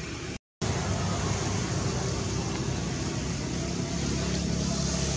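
Steady motor-vehicle noise, an engine droning low. The sound drops out completely for a moment just after the start.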